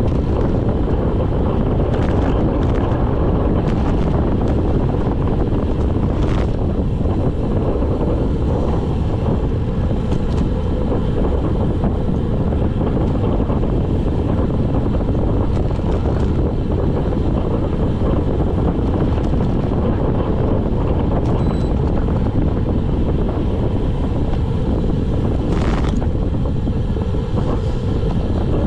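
Wind buffeting the microphone of a handlebar-mounted camera on a road bike descending at speed: a steady low rumble of wind and tyre noise, with a few brief clicks from the bike or the road.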